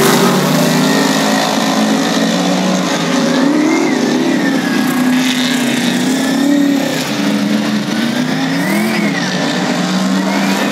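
Several dirt-track race car engines running hard, their revs rising and falling again and again as the cars race around the oval.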